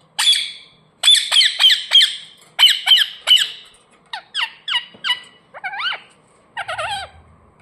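Indian ringneck parakeet giving a rapid series of loud, harsh squawks that drop in pitch, in quick groups of three or four. From about two-thirds of the way in they change to longer, warbling calls that waver up and down in pitch.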